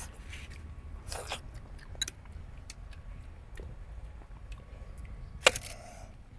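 Close-up eating sounds of goat head meat being chewed and handled, with a few sharp clicks and crunches, the loudest about five and a half seconds in, over a low steady rumble.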